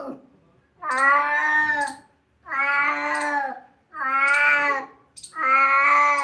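A cat meowing four times in a row, each meow long, about a second, and held at a steady pitch.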